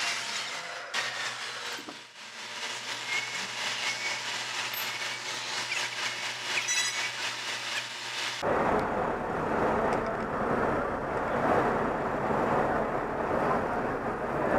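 Traffic noise on a busy city street, an even hiss without voices. About eight seconds in, a deeper rumble comes in suddenly and stays.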